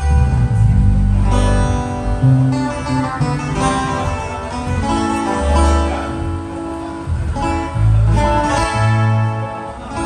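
A band playing at a sound check: strummed acoustic guitar over bass guitar notes, with electric guitar.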